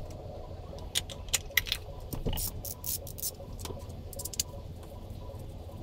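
Irregular metallic clicks and clinks as steel drill bits, used as timing pins, are handled and slipped into the alignment holes of a stopped marine diesel engine. The pins lock the engine's timing before the timing belt comes off. A steady low hum runs underneath.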